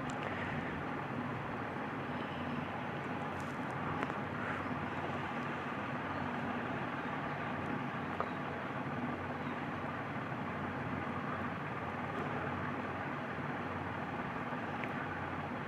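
Steady background hum, with a few faint metal clicks from pliers loosening the nuts on a table fan's body.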